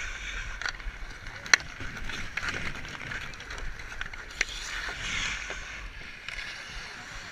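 Ice hockey skates scraping and gliding over outdoor ice, with sharp clacks of sticks on the puck. The loudest clack comes about a second and a half in, and another sharp one about four and a half seconds in.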